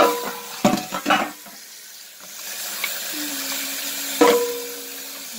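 Tap water running into a sink while a metal cigarette case is rinsed under it. A few sharp clinks of the case knocking against the sink, three close together near the start and one more about four seconds in, each ringing briefly.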